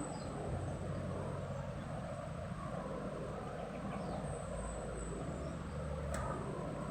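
Steady background noise with a low hum, and a single sharp click about six seconds in.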